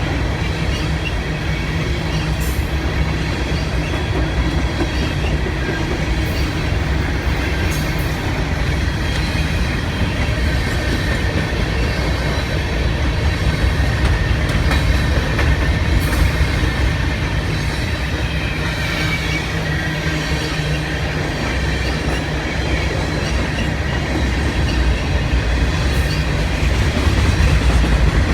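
Freight cars of a grain train rolling past: a steady rumble of wheels on rail with occasional sharp clicks and a faint wheel squeal.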